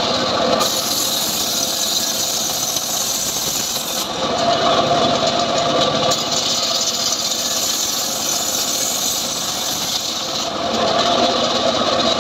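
Home-built engine-driven sawmill saw (a gergaji srekel) running and cutting johar wood. It is a continuous loud mechanical noise that changes character about every six seconds: near the start, about four seconds in, and near the end a steadier mid-pitched tone comes up while the hiss at the top falls away.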